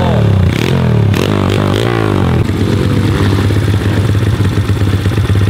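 MRF 140 TTR pit bike's engine revving up and down several times as the bike pulls away, then holding a steady note from about halfway through.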